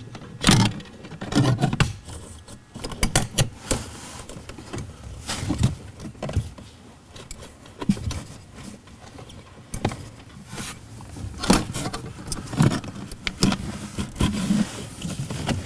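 Irregular rustling, clicks and knocks of a wiring harness being handled and pulled through a rubber firewall grommet.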